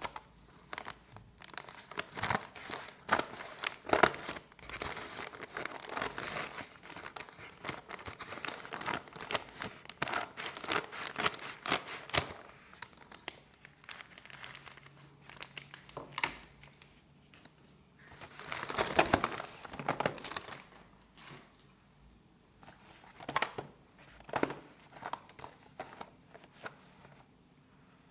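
Kraft-paper mailer crinkling and crackling as it is handled and cut open with scissors, dense for the first half. Then sparser paper rustling, with one longer, louder rustle about two-thirds through as the contents are slid out.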